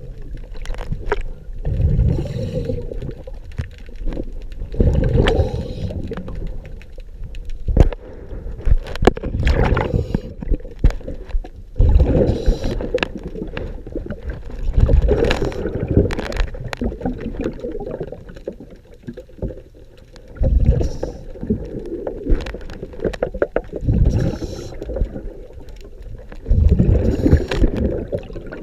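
A diver breathing underwater through a regulator, with exhaust bubbles gurgling out in loud bursts every few seconds.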